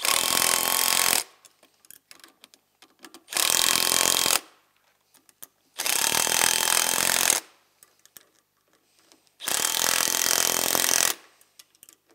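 Cordless power driver run in four short bursts of about a second each, driving home the nuts on the bolts that clamp new hard plastic drive cogs to a snowmobile drive axle. Faint clicks of handling the nuts and bolts come between the bursts.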